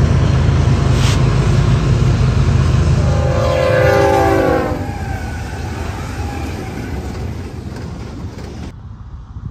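Diesel freight locomotives rumbling past, with a loud multi-note locomotive air horn blowing for about two seconds midway, its pitch sagging slightly as it passes. The sound changes abruptly near the end.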